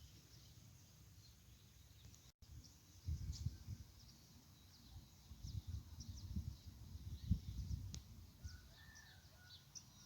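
Faint outdoor ambience of small birds chirping in short high notes, with irregular low rumbling noise from about 3 to 8 seconds in.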